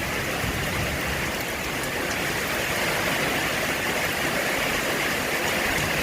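Rain falling steadily in the wind, a light rain with more wind than rain.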